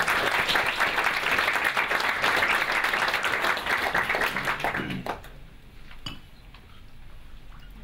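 Audience and panel applauding, a dense clapping that dies away about five seconds in, leaving a quiet room.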